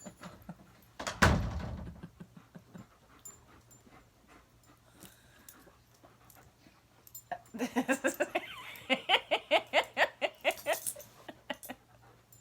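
A loud thump about a second in, then near the end a dog gives a quick, even run of short vocal sounds, about eight a second for some three seconds.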